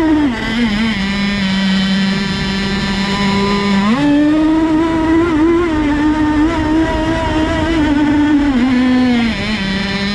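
Modified 29.5 cc Zenoah two-stroke gas engine of an RC racing boat running at high revs. Its pitch drops to a lower steady note just after the start, climbs back up about four seconds in, and drops again near the end.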